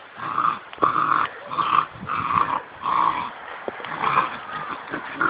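Puppies play-fighting: a quick run of short growls, about six in four seconds.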